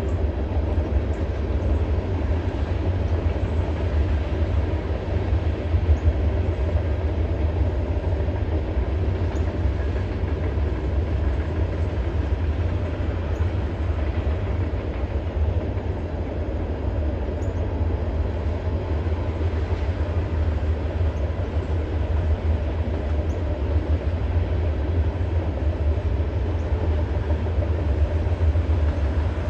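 Norfolk Southern freight train's cars rolling past: a steady, unbroken low rumble of wheels on rail.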